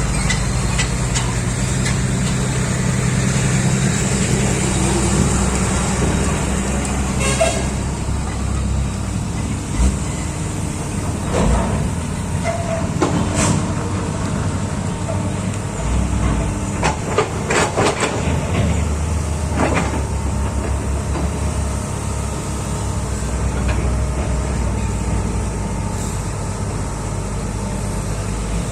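Heavy diesel machinery engine running steadily, with a number of short knocks and clanks scattered through, several close together about two-thirds of the way in.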